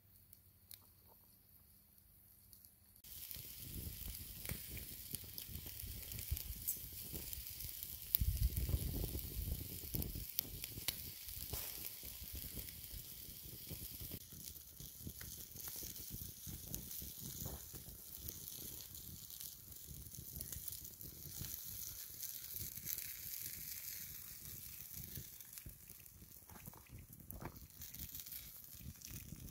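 Chicken sizzling on a spit over a birch-log bonfire's embers, with the fire crackling and popping. It starts abruptly about three seconds in, and a brief low rumble comes around eight seconds in.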